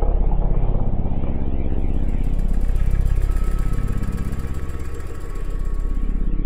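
Dark ambient drone music: a deep, rumbling synthesizer drone with a fast, even throbbing pulse, a faint thin high tone coming in about halfway through.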